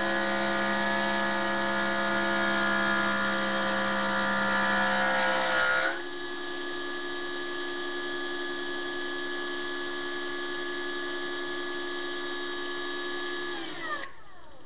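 Small electric power tool motor running at a steady high speed. About six seconds in it drops to a lower, quieter speed, then it is switched off and winds down near the end.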